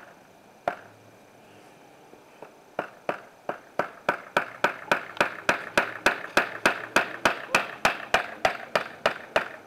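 Hammer driving nails into a wooden board: a few single blows, then from about three seconds in a steady run of quick strokes, about three or four a second, getting louder.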